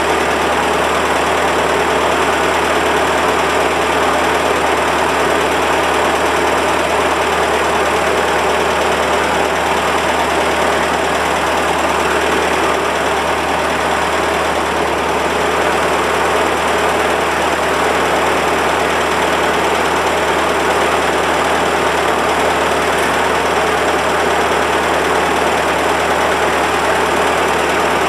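1948 Ford 8N tractor's four-cylinder flathead engine idling steadily, warming up after a cold start.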